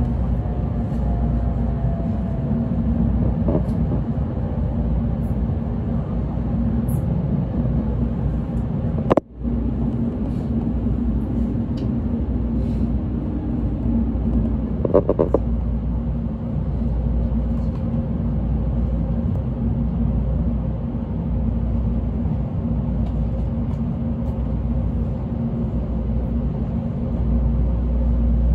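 Inside the cabin of an N700A Shinkansen train rolling slowly into a station platform: a steady low rumble, with a faint whine falling in pitch in the first few seconds. A sharp click about nine seconds in is followed by a brief dip in the sound, and a short tone sounds about fifteen seconds in.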